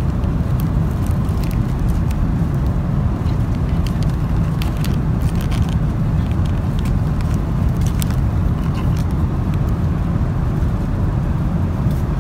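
Steady low cabin noise of a Boeing 747-400 in flight, with scattered crinkles and clicks of plastic food wrappers being handled.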